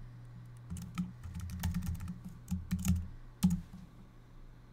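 Typing on a computer keyboard in short runs of quick keystrokes as a password is retyped, ending with one louder click about three and a half seconds in.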